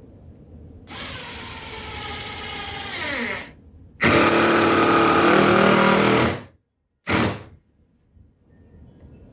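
Power drill driving screws into subfloor boards in three runs: a run of about two and a half seconds that winds down as the trigger is released, a louder run of about two seconds, and a short blip.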